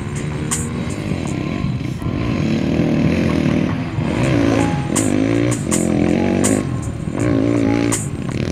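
Background music: a wavering melody line over a deep, steady bass, with occasional sharp percussion hits.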